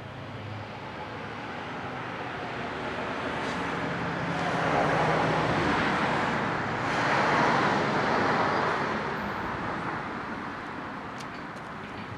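A road vehicle passing by: tyre and engine noise that swells over several seconds, peaks twice near the middle, then fades away.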